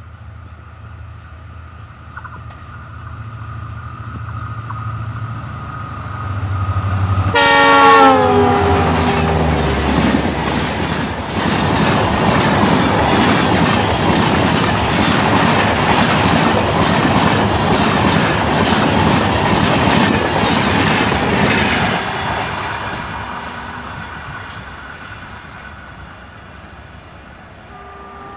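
WDP4D diesel-electric locomotive hauling a passenger express: its engine drone grows as it approaches, and a multi-tone horn sounds as it passes, dropping in pitch. Then the coaches pass with a steady clickety-clack of wheels over rail joints for about twelve seconds, and the sound fades away.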